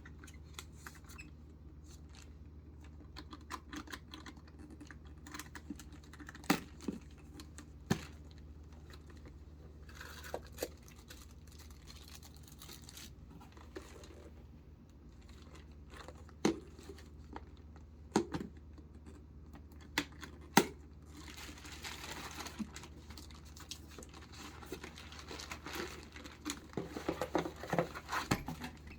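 Unboxing handling noise: packaging paper and plastic crinkling and tearing, with scattered sharp clicks and taps as the handbag and its box are handled. Denser rustling comes near the end, over a steady low hum.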